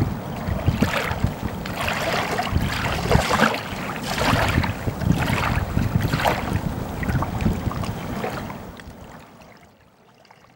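Small waves lapping onto a sandy lake shore, washing in and out about once a second, with wind buffeting the microphone. The sound fades out near the end.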